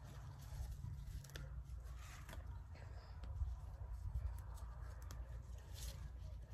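Faint crumbling and rustling of loose, moist soil as gloved hands dig through it to pick out Chinese artichoke tubers, with small scattered scratches over a low steady rumble.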